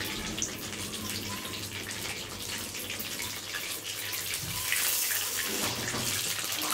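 Pieces of white pomfret deep-frying in hot oil in a kadai, a steady crackling sizzle. It grows louder around five seconds in, as tongs turn the pieces in the oil.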